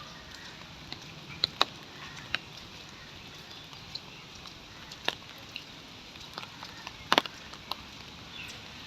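Rain falling: a steady hiss with scattered sharp drop hits at irregular moments, the loudest a cluster about seven seconds in.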